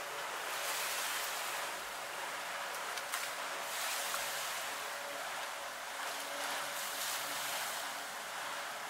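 Water poured and splashing over a plastic basket of freshly made steel bolts, rushing in swells and draining through the basket onto a wet floor, with a couple of short clicks from the bolts.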